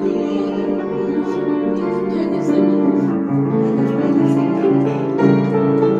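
Upright piano played with both hands in a flowing passage of chords.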